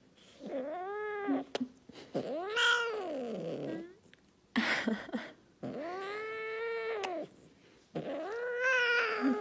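Scottish Fold cat meowing: four long, drawn-out meows, each rising and then falling in pitch, with a short breathy noise between the second and third.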